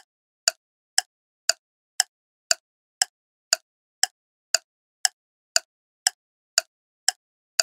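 Clock-ticking sound effect of a quiz countdown timer: short, sharp ticks evenly spaced, two per second.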